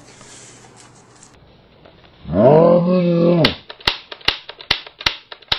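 A man's loud growling yell, about a second long, rising and then falling in pitch. It is followed by a run of sharp smacks, about two or three a second.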